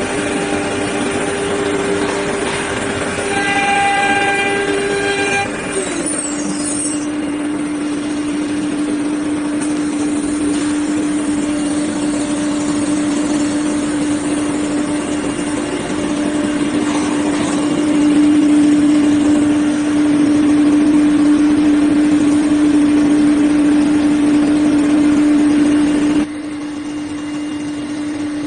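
FW-2130ATC automatic tool changer CNC router running a job, together with its vacuum pump and dust collector: a steady machine hum with a strong whine that steps down in pitch about five seconds in. It gets louder about two-thirds of the way through, then drops suddenly near the end.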